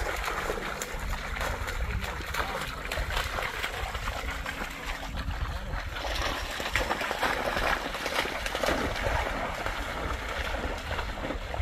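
Splashing and sloshing through shallow marsh water, with dry reeds and twigs rustling and crackling, as a German shorthaired pointer wades through. A faint low steady hum lies under the first few seconds.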